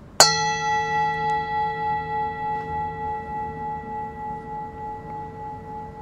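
A metal bell-like instrument is struck once, just after the start. It rings on with several steady tones that fade slowly, with a gentle, regular wavering in loudness.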